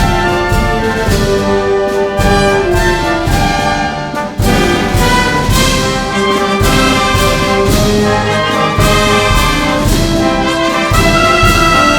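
Municipal wind band playing a Holy Week processional march, brass leading with regular drum strokes underneath. The music drops briefly about four seconds in, then comes back in full.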